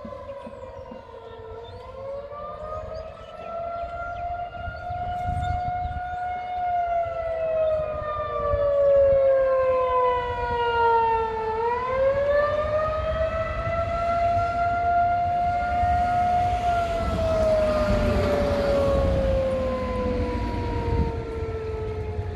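Outdoor tornado warning siren wailing in a steady tone, its pitch sliding slowly down and back up over several seconds, twice. A broad rush of noise swells and fades under it in the second half.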